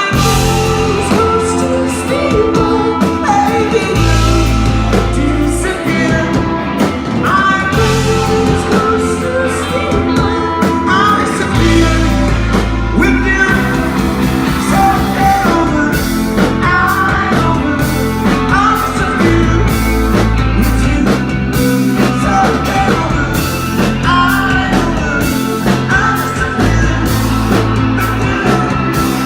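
Rock band playing live: a voice singing over electric guitars, bass and drums.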